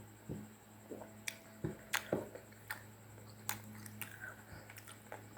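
Dry clay being bitten and crunched: irregular crisp crackles and snaps, a few heavier crunches about two seconds in, over a steady low electrical hum.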